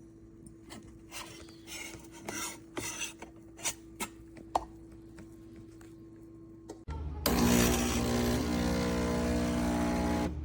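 Scattered light clicks and knocks of parts being handled on the espresso machine. About seven seconds in, the 20-bar espresso machine starts with a loud, steady buzz and hiss, which cuts off near the end.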